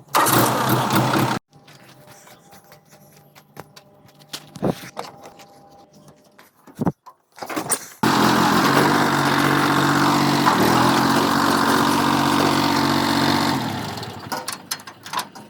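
An engine starts a loud, steady run about halfway through and fades out a few seconds before the end. Earlier there is a short loud burst, then a quieter stretch with scattered clicks.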